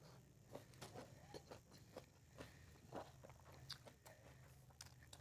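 Faint eating sounds: a person chewing, with scattered soft clicks and smacks at irregular intervals over a low steady hum.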